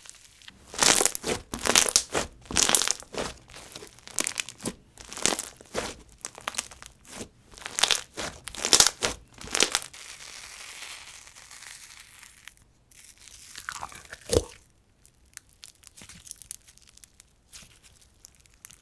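Slime being stretched and squeezed by hand, giving a dense run of crackles over the first ten seconds or so, then softer presses and a couple of single pops.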